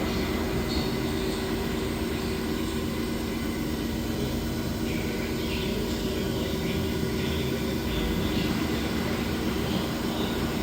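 Electrolux Professional commercial laundry machines running: a steady motor hum with a few faint light clinks on top.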